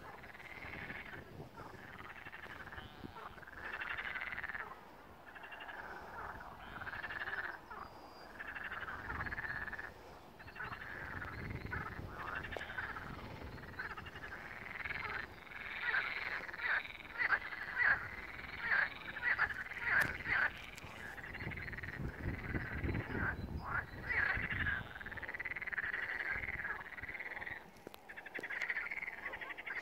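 A chorus of pond frogs singing, many overlapping pulsed calls that swell and fade in bouts, busiest in the second half.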